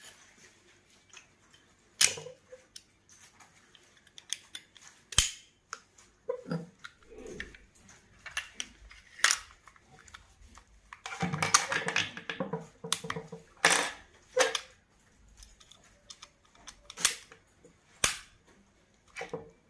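Metal pistol parts clicking, snapping and sliding together as a pistol is assembled by hand: scattered sharp clicks, with a stretch of quick rattling clicks about halfway through.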